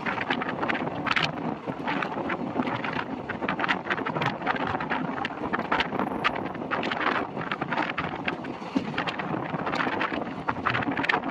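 Wind buffeting a microphone held out of a moving passenger train's window, over the running noise of the coaches on the track, with frequent sharp clicks.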